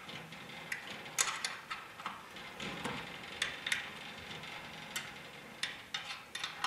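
Steel cable railing hardware being tightened by hand at a steel post: irregular small metallic clicks and ticks.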